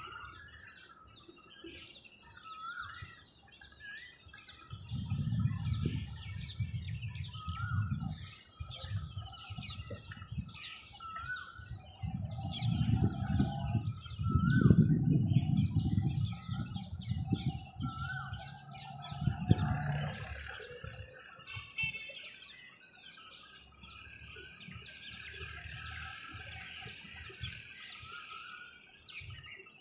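Many birds chirping and calling in a morning chorus, with a short call repeated again and again and a dense scatter of high chirps. A low rumble rises and falls through the middle and is loudest about halfway.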